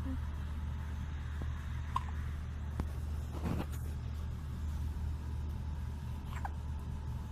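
Newborn baby hiccuping: two short, high little squeaks about four and a half seconds apart, over a steady low hum.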